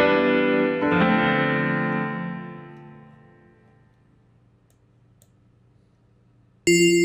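Sampled keys preset in a Kontakt library playing two chords about a second apart, ringing out and fading over a few seconds. After a near-silent gap, a bright, sustained bell-like synth tone starts suddenly near the end.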